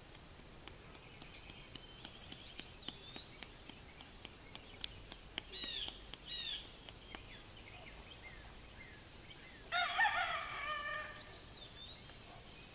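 A rooster crows once, about ten seconds in, the loudest sound here. Shorter bird calls come a few seconds before it.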